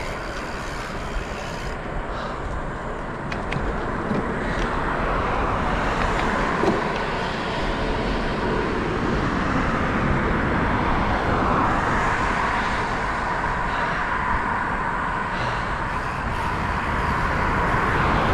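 Steady wind rush and road noise on the microphone while riding a bicycle along a road, with traffic noise mixed in.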